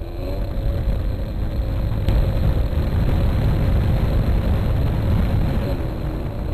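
Radio-controlled model airplane engine running at idle, picked up by the camera on the airframe as a steady, heavy rumble with a faint steady whine. A single sharp click about two seconds in.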